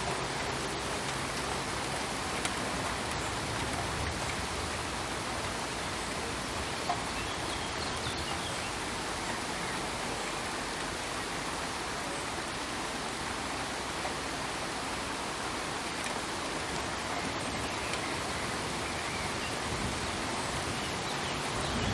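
Steady rain falling: an even, dense hiss with a couple of louder drop-ticks.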